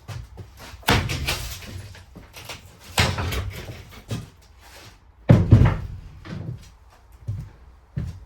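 Wooden wall boards being pried off and handled: three loud bangs, each trailing into a rattling scrape, with smaller knocks between.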